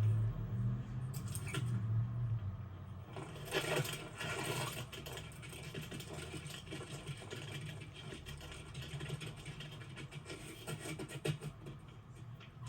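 Film sound effects: a steady low hum under scraping, scratchy noise and scattered clicks, busiest about three to five seconds in.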